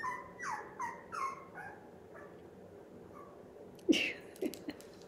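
Small puppy whining: about half a dozen short whimpers, each falling in pitch, in quick succession over the first two seconds, then a brief louder noise about four seconds in.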